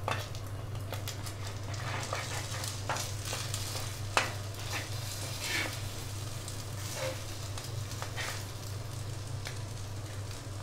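Egg and okra frying in a pan with a quiet sizzle, while a cooking utensil scrapes and taps against the pan at irregular moments, a sharper click about four seconds in. A steady low hum runs underneath.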